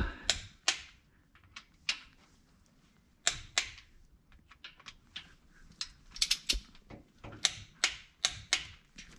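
Ratchet wrench clicking in short runs of strokes, with pauses between, as the cam retaining plate bolts on the front of an LS V8 block are run in and tightened.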